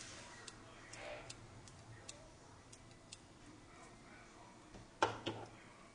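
Light metallic clicks and ticks from a small pointed tool picking at the parts inside an opened 4 GB Microdrive. Two louder knocks come close together about five seconds in.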